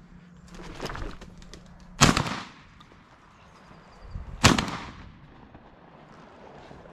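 Two shotgun shots about two and a half seconds apart, each with a short echoing tail. A softer rustle rises about a second in, before the first shot.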